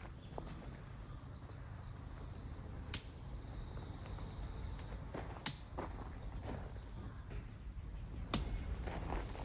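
Insects shrilling in two steady high tones, with three sharp clicks or snaps about three, five and a half and eight seconds in.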